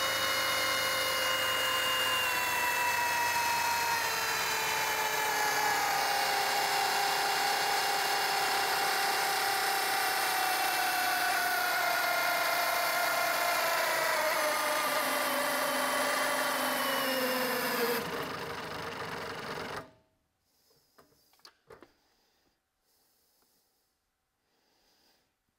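Milwaukee M18 FUEL 2904 brushless hammer drill running in second gear against a hydraulic dynamometer brake. Its motor whine falls slowly in pitch as the load builds and the speed drops. Near the end it winds down and stops, followed by a few faint clicks.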